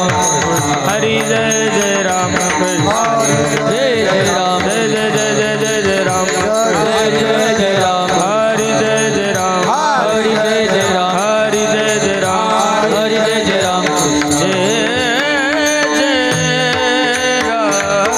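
Kirtan devotional music: a voice sings long, wavering melodic lines over a steady held drone and hand-drum accompaniment.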